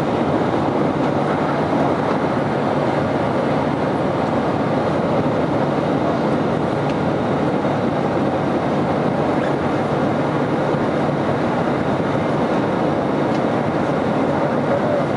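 Steady, even rush of engine and airflow noise heard inside the cabin of an Airbus A320 airliner in flight.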